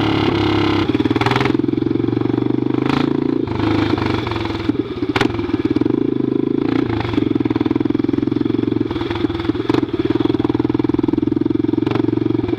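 Honda NX Falcon single-cylinder motorcycle engine running loudly through a straight pipe with no muffler, revved, with a handful of sharp pops from the exhaust at uneven intervals.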